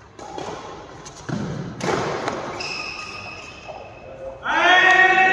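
A few thuds and knocks with a short high squeak, then a loud drawn-out voice held on one pitch from about four and a half seconds in.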